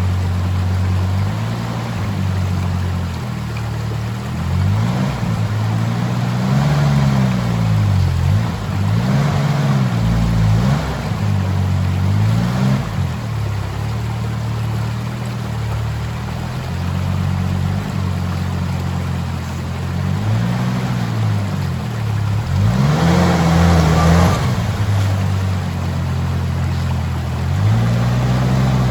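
Suzuki Jimny JA11's 660 cc turbocharged three-cylinder engine revving in repeated short bursts that rise and fall every couple of seconds, with a longer, harder rev about three-quarters of the way through. This is the throttle work of climbing a rocky waterfall.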